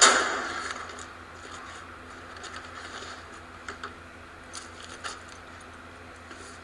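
A sudden loud impact that fades over about a second, followed by faint scattered clicks and crackles over a steady low hum.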